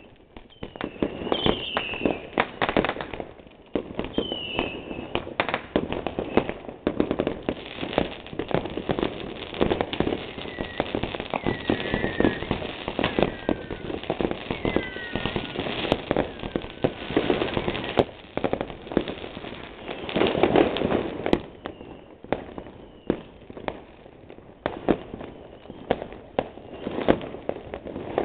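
New Year's Eve fireworks: a continuous barrage of sharp bangs and crackling from firecrackers and rockets going off all around, with a few whistles falling in pitch near the start and a denser burst of crackling about twenty seconds in.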